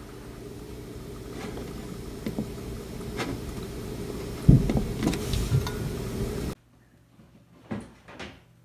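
A steady low mechanical hum with a few faint clicks of a computer mouse and one heavier thump about four and a half seconds in. The hum cuts off suddenly, leaving a quiet room with two short soft thuds.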